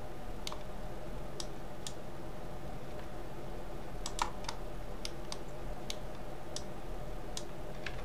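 Scattered clicks of a computer keyboard and mouse, about a dozen at uneven spacing with the loudest about four seconds in, over a steady low electrical hum.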